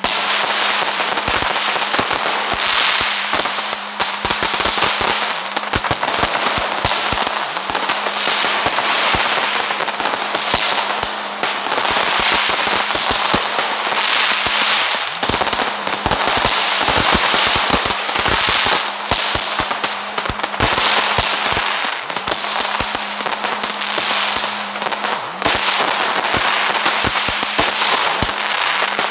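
Firecrackers going off in a dense, continuous run of rapid cracks and pops, with a crackling hiss between them. A steady low hum sits underneath.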